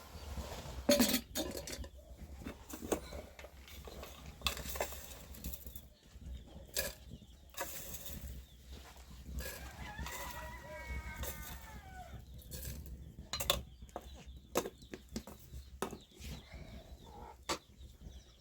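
Chickens clucking, with scattered sharp knocks and clinks and one drawn-out call that falls in pitch about ten seconds in.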